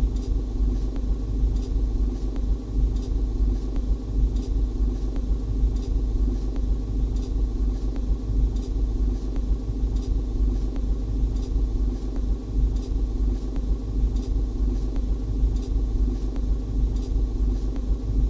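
Repeated short, high squeak from behind the dashboard of an Opel/Vauxhall Meriva B, coming about once every 0.7 seconds in time with the car's slow rolling, over the low rumble of the cabin and road. The owner suspects something turning with the wheels' movement.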